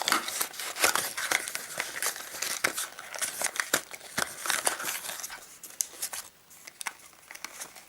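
Packaging crinkling and rustling with many small irregular crackles and clicks as a small boxed item is handled and unpacked. The sound is busiest for about the first five seconds, then thins out to scattered clicks.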